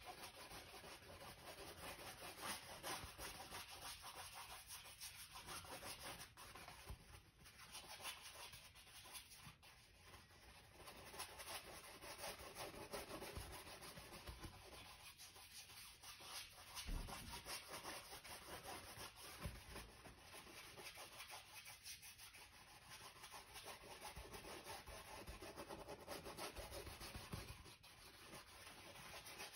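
Paintbrush bristles scrubbing paint onto a stretched canvas: faint, continuous rubbing and scratching, stroke after stroke.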